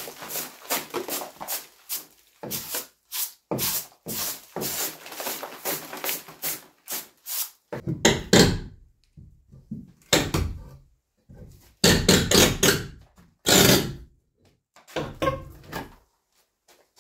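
A long-handled brush scraping debris from the base of a log wall in quick strokes, about three or four a second. About eight seconds in it slows to a handful of longer scrapes with pauses between them.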